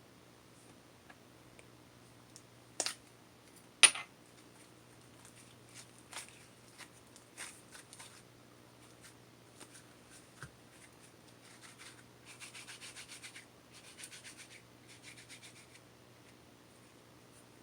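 A few sharp taps or knocks, the loudest about four seconds in, then three short bursts of quick back-and-forth rubbing or scratching near the end, over a faint steady hum.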